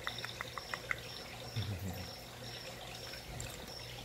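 Small puppies' claws clicking quickly on a polished concrete floor for about the first second. Under it runs a regular high chirping, about two chirps a second, typical of feeder crickets, with a brief low sound about one and a half seconds in.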